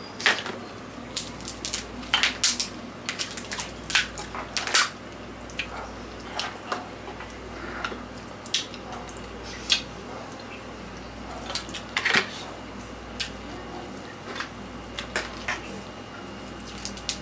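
Cooked mud crab shells being cracked and picked apart by hand, with irregular sharp cracks and clicks that come thickest in the first five seconds and sparser after, mixed with wet eating and chewing sounds.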